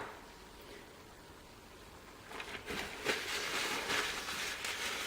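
Irregular scraping and rustling handling noise of metal lathe apron parts, starting about two seconds in after a quiet start.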